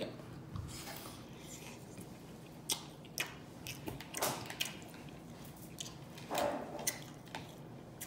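A person chewing a mouthful of juicy turkey breast with open-mouthed wet smacking, in scattered short smacks with quieter chewing between.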